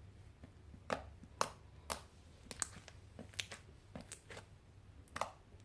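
Clear slime being squeezed and worked by hand, giving off a string of irregular sharp pops and clicks.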